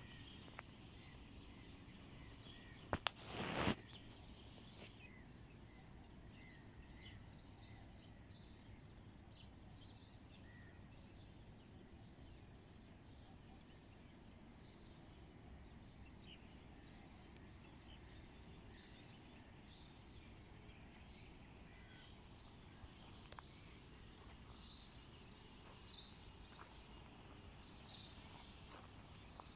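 Faint outdoor ambience with small birds chirping sporadically throughout. A short loud burst of noise, the loudest thing here, comes about three seconds in.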